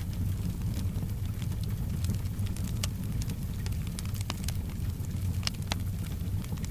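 Fireplace fire crackling, with scattered sharp pops over a steady low rumble, and soft rain in the background.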